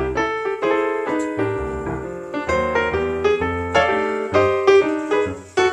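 Piano music: a quick, flowing run of notes with chords underneath.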